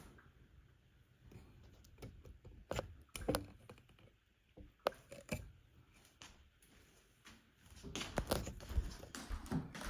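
Scattered sharp clicks and knocks of a car radio head unit's plastic housing and clips being handled and worked apart, with a busier run of clicking and rattling near the end.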